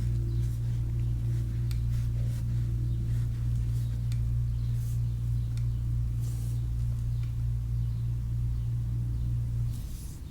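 A steady low electric hum, like a small motor running, that cuts off suddenly near the end, under faint skin-rubbing and small clicks from hands massaging a foot.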